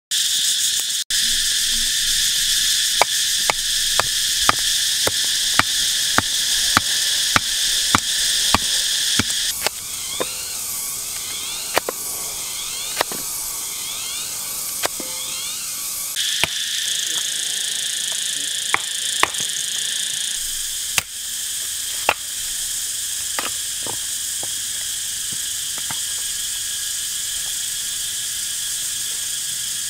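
Steady high-pitched drone of forest insects, with sharp clicks and knocks over it: a run of about two a second in the first third, then scattered ones. A warbling trill joins in for several seconds in the middle.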